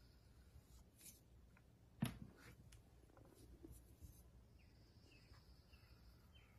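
Faint scraping of a metal ribbon loop tool carving through a firm clay vessel wall, with one sharp click about two seconds in.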